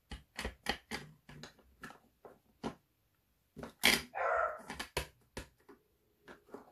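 Light clicks and taps of clear acrylic stamp blocks being handled on a craft desk, a quick run of them in the first few seconds. About four seconds in comes one short, louder dog bark.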